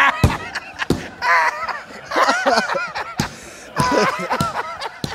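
A man laughing loudly in several bursts, with a few short sharp smacks between them.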